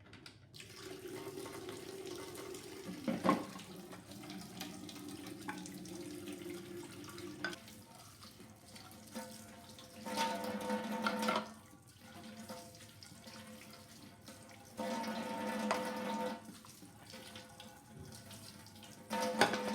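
Water running from a kitchen tap into a sink, rising and falling in stretches, with a sharp knock about three seconds in and another near the end.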